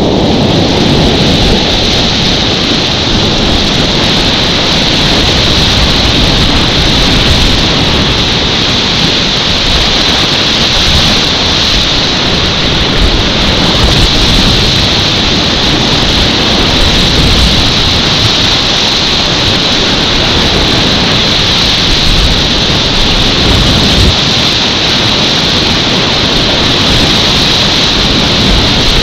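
Loud, steady rush of class 4 creek whitewater running at about 500 cfs, unbroken and without distinct splashes.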